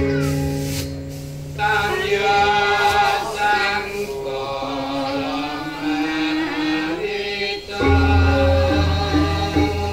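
Javanese gamelan music with singing. A chant-like sung line runs from about a second and a half in to near the end, and then the metallophones and low sustained tones come back in strongly.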